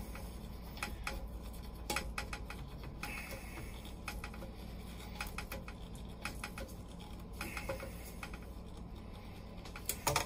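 Irregular light clicks and short scrapes of hand work on the plastic macerator pump assembly of a Tecma toilet as a hose and its clamp are snugged onto the pump, over a steady low hum.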